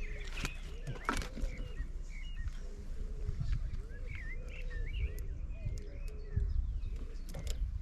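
Birds calling with many short, curling notes over a low wind rumble, with a few sharp clicks.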